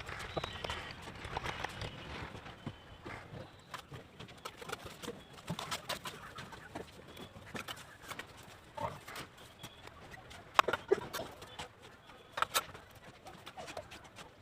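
Brick-laying work: scattered sharp taps and clicks of a mason's trowel on bricks and mortar, the loudest twice near the end. Birds call in the background, pigeons cooing and hens clucking.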